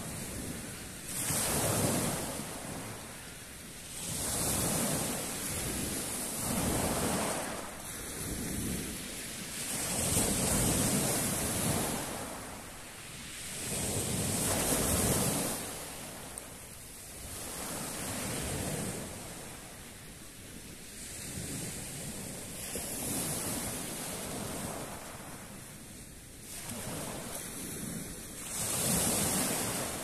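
Small sea waves breaking and washing over a pebble beach, the surf rising and falling in swells every few seconds.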